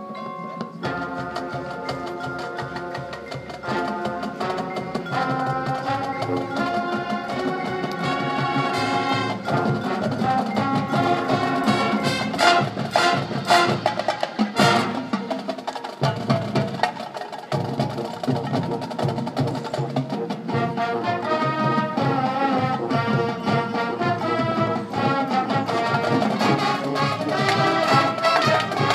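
Marching band playing a field-show movement: sustained brass chords over pit and drum-line percussion, with a run of sharp percussion hits about halfway through and the music building louder near the end.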